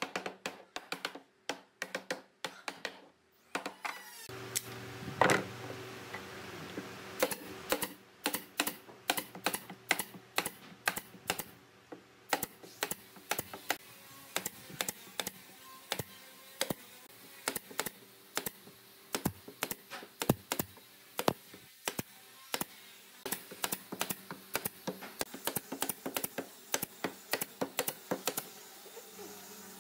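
A claw hammer tapping on a pine tabletop, then a pneumatic brad nailer firing nails into the wood in quick runs of sharp clicks, several a second, with one loud knock about five seconds in.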